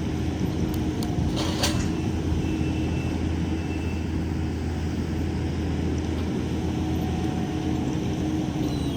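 A heavy machine's engine running steadily at one constant pitch, with a brief clack about one and a half seconds in.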